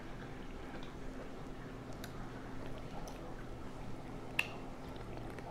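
Faint, close wet mouth sounds of chewing and sipping from a drink can, with a few light clicks and one sharp click about four and a half seconds in.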